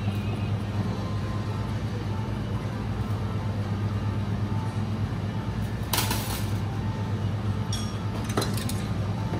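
Steady low hum of a commercial kitchen's range-hood exhaust fan, with two sharp knocks on the counter, one about six seconds in and one near the end.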